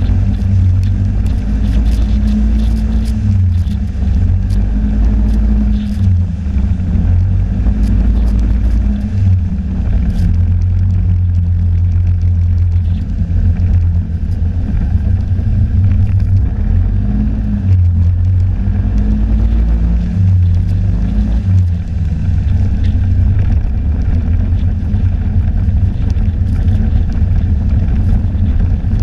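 Snowmobile engine running under way, a loud steady low drone whose pitch rises and falls a little as the throttle changes.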